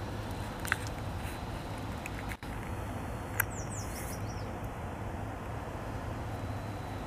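A beaver gnawing on a sapling on its dam: two sharp cracks of wood about three seconds apart, over a steady low background rumble.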